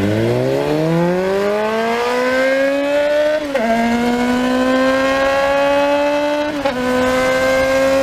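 A vehicle engine accelerating hard through the gears. Its pitch climbs steadily, falls at an upshift about three and a half seconds in, climbs again more slowly and falls at a second shift near seven seconds.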